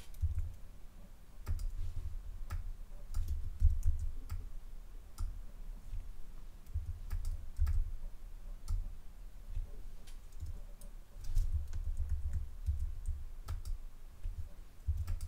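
Scattered, irregular clicks of a computer mouse and keyboard, with a low rumble coming and going underneath.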